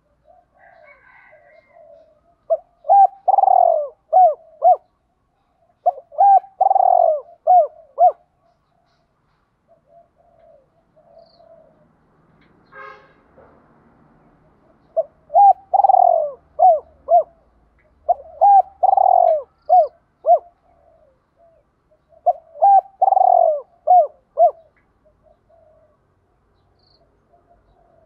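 Spotted dove cooing: five loud phrases a few seconds apart, each a quick run of short notes around one longer note, with softer coos between them.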